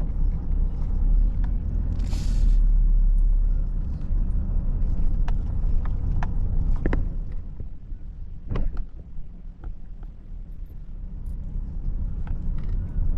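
A car driving over rough ground: a steady low rumble of engine and road, with scattered sharp knocks and rattles as it bumps along. There is a brief hiss about two seconds in.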